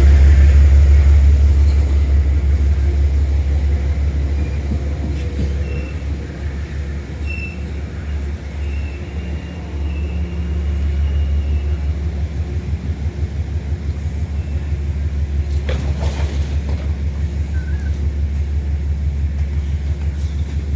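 Metro-North diesel locomotive running with a steady low rumble as the train comes to a stop at the platform. There is one brief knock about three-quarters of the way through.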